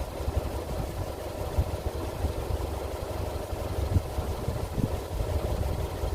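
Subaru Impreza WRX STI (GVB)'s 2.0-litre turbocharged flat-four idling through an aftermarket SARD sports catalytic converter. It gives a steady, uneven low exhaust burble.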